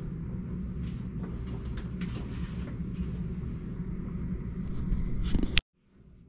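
Steady low rumble with faint rustles, swelling slightly, then cut off by a sharp click about five and a half seconds in, after which it goes almost silent.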